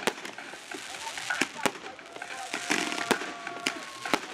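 Fireworks display: about eight sharp, irregularly spaced bangs from bursting shells over a continuous crackle of stars.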